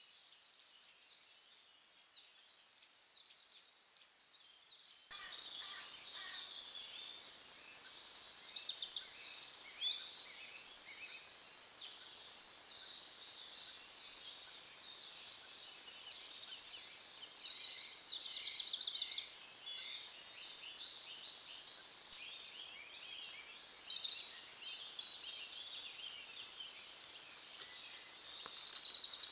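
Woodland songbirds singing, a dense chorus of overlapping chirps and trills over a steady hiss.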